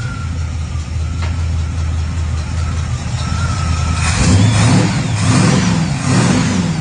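1969 Pontiac Firebird's engine idling steadily, then blipped up and back down about three times in the second half.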